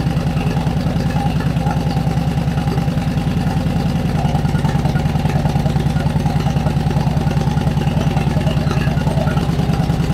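Honda Shadow VT1100's V-twin engine idling steadily with an even exhaust pulse, running so the rewelded exhaust pipes can be checked for leaks.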